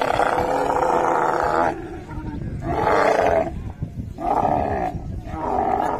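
Dromedary camel calling loudly during mating: one long call of almost two seconds, then three shorter ones.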